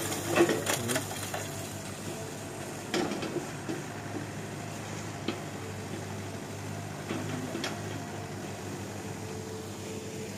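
Diesel engine of a Komatsu PC78US compact excavator running steadily, with knocks and clanks of burnt debris and scrap metal being dropped and shifted. The loudest knocks come in the first second, with a few more later on.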